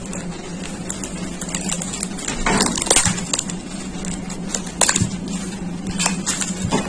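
Clear plastic wrap on a plastic tray of dates crinkling and crackling as it is peeled open by hand, in irregular sharp crackles.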